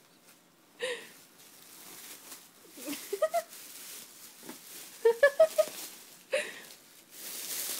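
Thin plastic shopping bag rustling and crinkling in short bursts as a cat struggles with its handle caught around her body.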